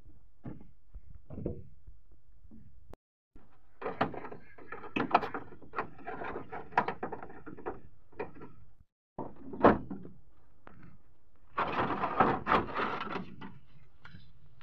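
Hands working on a Mitsubishi L300 van's stripped front door: the plastic door sheet being peeled off and door parts handled, giving a run of scrapes, clicks and knocks. There is one sharp knock about ten seconds in, and a denser stretch of scraping a little after.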